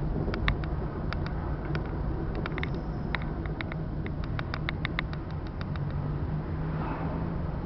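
A car's engine and tyres running at low speed, a steady low rumble heard from inside the cabin, with irregular light clicking rattles over the first six seconds.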